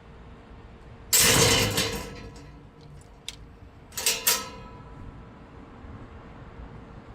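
Metal gate clanging shut: a loud rattling clang with metallic ringing about a second in, a small click, then two sharp ringing clanks about four seconds in as the latch is worked.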